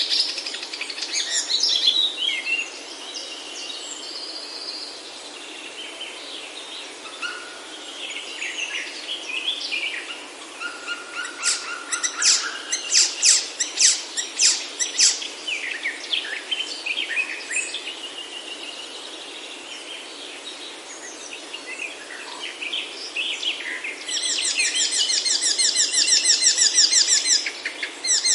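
Several wild birds calling and singing in a Himalayan oak forest, with many short high chirps and whistles overlapping. About halfway a quick run of loud, sharp notes sounds, and near the end a loud, fast trill takes over.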